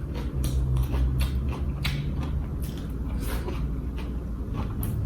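Close-up crunchy chewing of crispy air-fried pork, a run of crisp crunches about twice a second.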